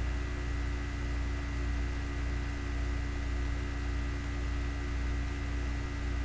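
Steady electrical hum: an unchanging low drone with a few faint higher tones over an even hiss, with nothing else happening.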